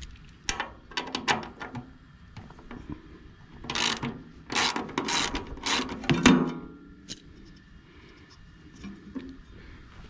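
Ratchet wrench with a 10 mm socket clicking as it loosens the clean-out panel bolts on a wood chipper's housing: a few quick clicks, then several longer runs of ratcheting, with a metallic clunk a little after six seconds in.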